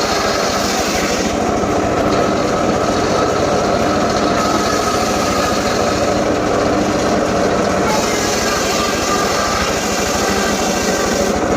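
Engine-powered saw running steadily and cutting wood, a high hiss swelling and fading every few seconds.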